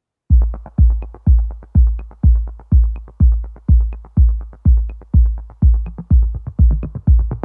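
Electronic dance music with a heavy kick drum on a steady beat, about two a second, and fast hi-hat ticks between the kicks, starting just after the beginning.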